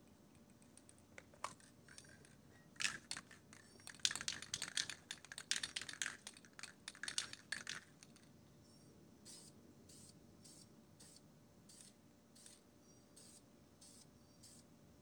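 Aerosol spray-paint can shaken hard, its mixing ball rattling in quick clicks, then from about the middle a run of short hissing spray bursts, about two a second.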